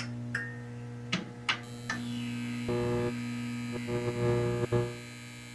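Electrical hum and buzz of a neon sign flickering on, with several sharp clicks as it sparks to life. A higher buzz joins the steady hum about halfway.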